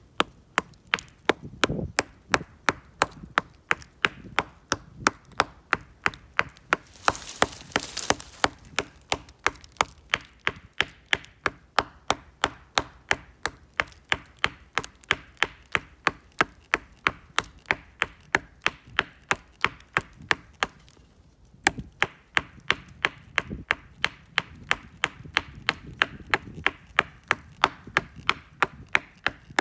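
Hafted stone axe chopping into the trunk of a small black walnut sapling: a steady run of quick, evenly spaced blows of stone into green wood, with a short pause about two-thirds of the way through.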